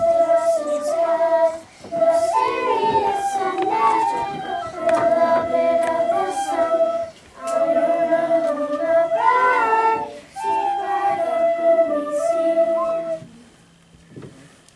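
A group of children singing a song together in unison, in phrases with two short pauses between them; the singing stops shortly before the end.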